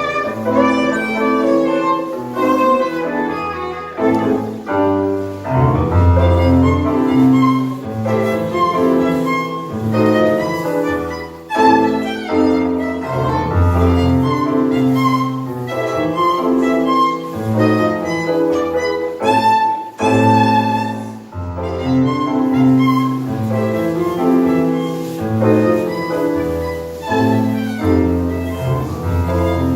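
Live tango music from a small ensemble: piano with bowed strings, a violin carrying the melody over a low, rhythmic bass line.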